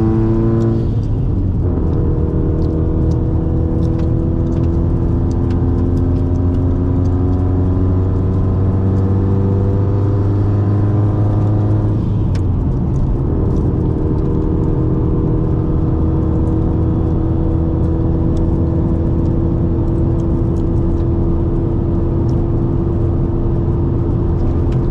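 2004 Subaru WRX's turbocharged flat-four engine heard from inside the car while driving, its pitch climbing slowly through each gear, with gear changes about a second in and again about twelve seconds in, over a steady road rumble.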